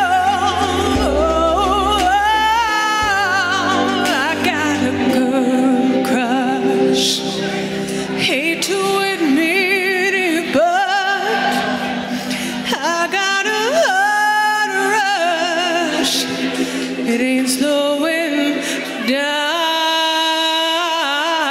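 A woman singing a slow country ballad into a handheld microphone over a backing track. The bass drops out about three seconds in, and the voice ends on a long held note.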